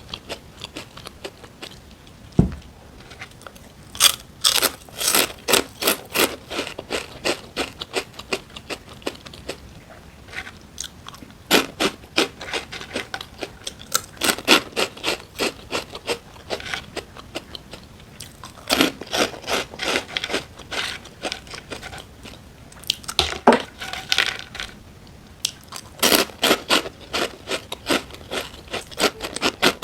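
Close-miked crunching and chewing of crisp food, in runs of quick crackling bites and chews broken by short pauses, with a low thump about two seconds in.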